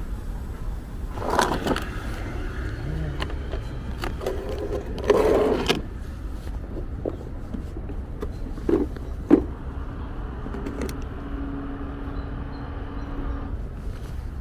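Steady low vehicle rumble with a few scattered knocks and scrapes, and a faint steady hum for a few seconds near the end.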